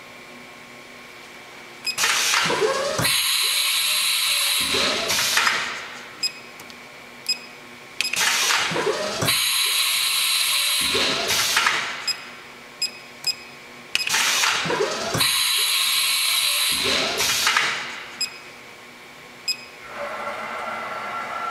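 Haas VF-3 CNC mill's side-mount automatic tool changer cycling three times, about six seconds apart: each change is a rising and falling motor whir with a loud hiss, and single clicks come between changes. A steady machine hum begins near the end.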